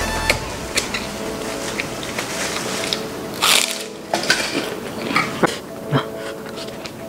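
Eating noises: sharp clicks of a fork and spoon against a ceramic plate, with slurping of instant noodles and chewing. There is one louder noisy burst about three and a half seconds in.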